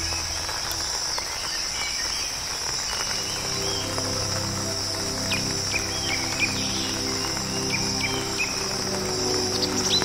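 Nature soundscape: insects keep up a steady high-pitched drone while birds give short chirps from about four seconds in. Soft background music with held notes comes in about three seconds in.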